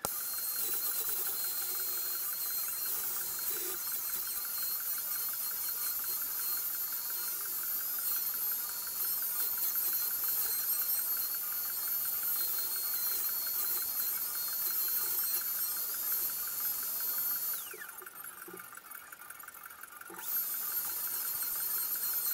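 Compact trim router running with a steady high whine as it cuts along a maple board. About seventeen seconds in it is switched off and winds down with a falling pitch, then starts up again about two seconds later.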